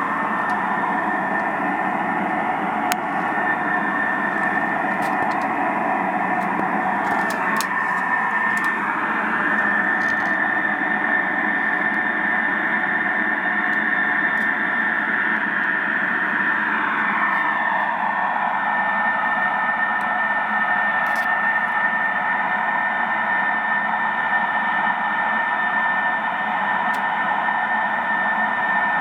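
Unexplained steady drone in the night sky, made of several held tones layered over a noisy hiss with a thin high whine on top. The tones slide slightly in pitch twice, about a third and about two-thirds of the way through.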